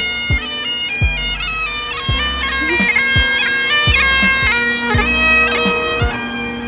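Bagpipe music: a stepping melody over steady drones, with repeated bass drum beats.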